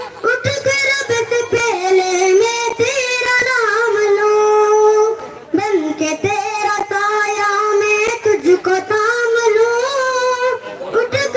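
A boy singing a melodic song into a microphone, amplified over the stage loudspeakers, with long held notes and a brief pause for breath about five seconds in.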